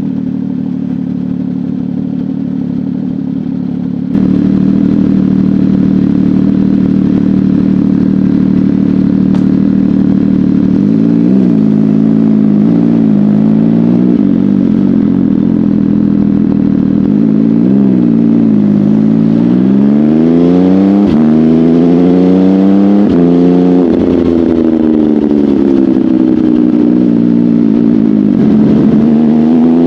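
Sport motorcycle engine running loud and steady, getting louder about four seconds in. From about a third of the way through it is revved and accelerated again and again, its pitch climbing and dropping with each pull, with longer climbs near the end.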